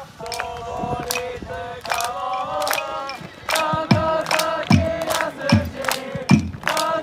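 Football supporters singing a chant for their team's manager in unison. About three and a half seconds in, steady low beats join, about one every 0.8 s.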